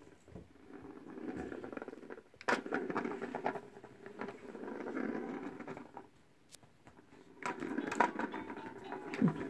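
Rustling and scratching in four bursts of a second or two each, with a few sharp clicks, like a small pet scrabbling about in bedding.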